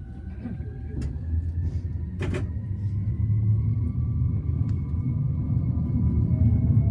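Tokyu Setagaya Line tram pulling away, its electric traction motors whining up in pitch over a low rumble of wheels on rail that grows steadily louder. Two sharp clacks come about one and two seconds in.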